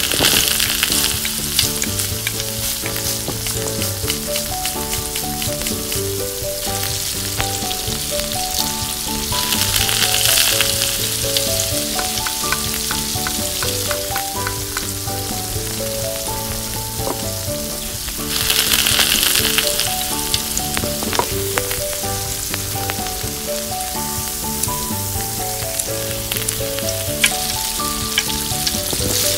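Oil sizzling and spitting in a small steel kadai as whole spices and chopped onion fry, with small spoon ticks against the pan. The sizzle swells sharply three times, each for a second or two. A light melodic background tune plays underneath throughout.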